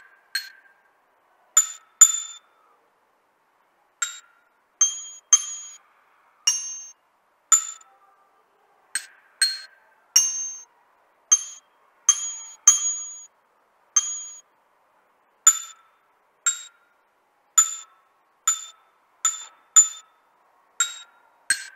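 A small chromatic glockenspiel played one note at a time with a single mallet, picking out a slow melody; each metal bar rings briefly and fades before the next is struck. There is a pause of nearly two seconds after the first few notes.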